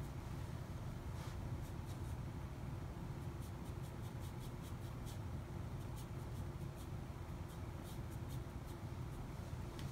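Faint, scratchy strokes and taps of a flat paintbrush on watercolor paper, over a steady low room hum.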